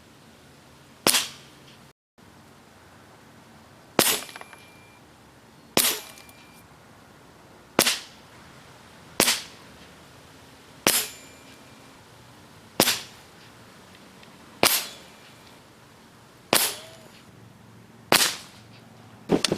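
Hatsan AT44 .22 precharged pneumatic air rifle with its integrated shroud, fired in a steady string of about ten shots, one every one and a half to two seconds. Each shot is a sharp crack that dies away quickly.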